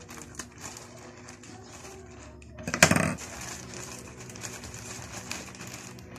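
Plastic courier parcel bag being handled to open it: scattered small clicks and rustles, with one loud burst of plastic rustling about three seconds in.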